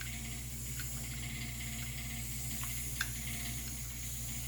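Steady background hum and hiss, with a few faint clicks and one sharper click about three seconds in, typical of shotgun parts being handled during cleaning.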